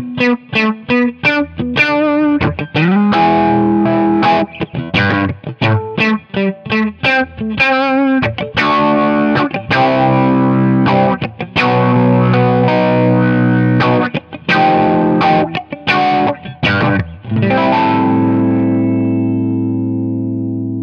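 Electric guitar played through an Electro-Harmonix Q-Tron Plus envelope filter into a Peavey combo amp, with quick single-note runs and chords that quack and sweep like an auto-wah. Near the end a last chord rings out and slowly fades.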